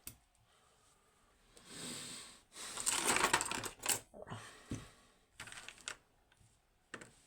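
Small metal lock parts and tools handled on a work surface: a rattling clatter about three seconds in, followed by scattered light clicks.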